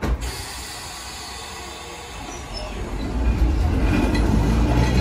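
Rumble of a vintage tram running on the track. It starts abruptly and grows louder over the last couple of seconds.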